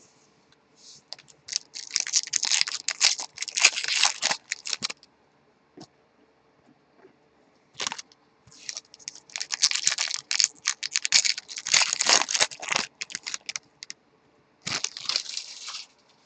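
Baseball trading cards being flicked through one after another in the hand: a crisp, rapid clicking rustle of card edges, in three spells with short pauses between.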